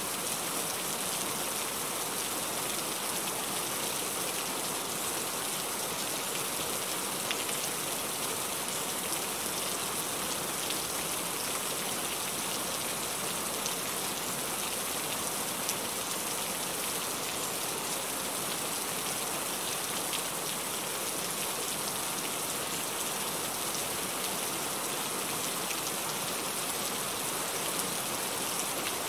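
Heavy rain falling steadily: an even hiss with scattered sharp drop ticks.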